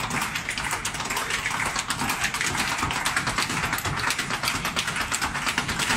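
Ottawa Valley step-dance shoes drumming rapid footwork on a wooden stage, several dancers at once, without music.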